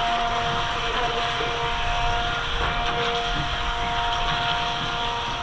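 Small electric motor of a radio-controlled water-jet boat, running with a steady whine at an even pitch over the rush of a shallow, fast-flowing brook.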